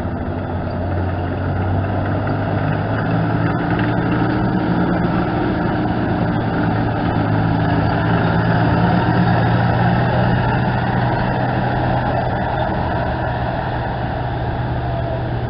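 Engines of WWII-era military vehicles, a half-track and then a truck, running as they drive past in a column. It is a steady low engine drone that grows louder toward the middle and then slowly fades.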